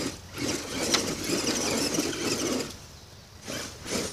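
Axial Wraith Spawn RC rock crawler's electric motor and drivetrain whirring under throttle in two bursts, a long one then a short one near the end, as the truck strains against a log it is stuck on.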